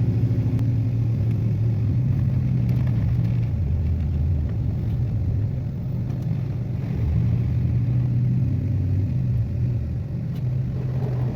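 Pickup truck engine and road noise heard from inside the cab while driving, a steady low drone whose pitch shifts down and back up a few times.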